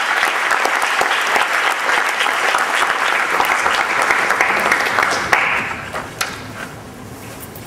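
Audience applauding, the clapping dying down about six seconds in.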